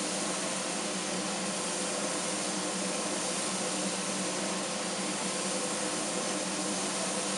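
Diedrich IR-5 coffee roaster's cooling tray running: the cooling fan draws air through the freshly roasted beans while the stirring arms sweep them round, giving a steady hiss with a faint hum.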